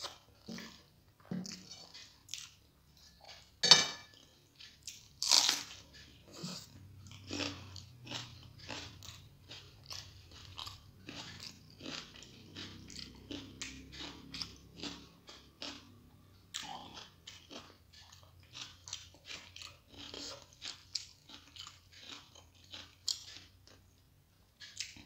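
Close-up chewing and mouth sounds of someone eating rice and egg curry by hand: quick wet clicks and smacks several times a second, with two louder sharp crunches about four and five seconds in.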